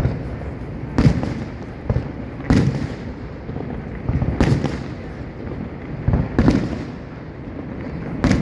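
Aerial fireworks bursting: about seven sharp bangs at irregular intervals of roughly half a second to two seconds, each followed by a short echoing tail, over a steady low rumble.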